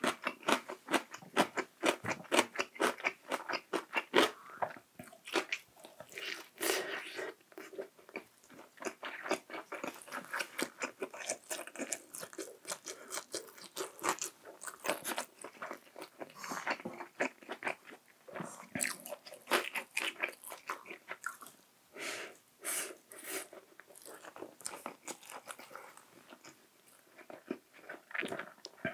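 A person chewing food close to the microphone: a dense run of wet crunching and clicking mouth sounds, quick and close together for the first few seconds, then more scattered, with a few sharper clicks among them.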